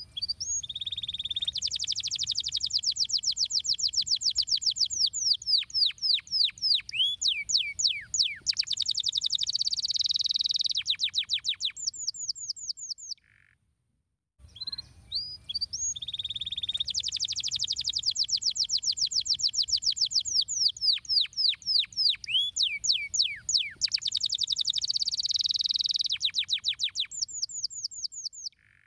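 Domestic canary singing: a long song of fast trills and quick falling whistled notes, high-pitched. The song stops briefly about halfway through, then the same phrase plays again.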